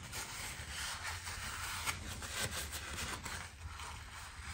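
Faint, irregular rubbing and rustling of a cloth rag wiping the oil filter mounting surface on a motorcycle engine, with nitrile gloves brushing against the metal, over a steady low hum.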